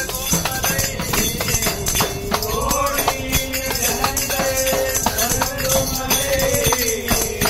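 Ayyappa devotional bhajan: a wavering, sliding sung melody carried over steady rhythmic clinking hand percussion.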